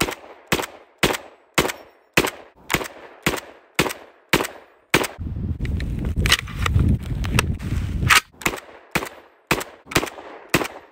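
Semi-automatic M60 belt-fed rifle in 7.62×51 mm firing steady single shots, about two a second, ten in a row. About halfway through, the firing pauses for a few seconds of low handling rumble and a few metal clacks while a fresh five-round belt goes onto the feed tray. The shots then resume at the same pace.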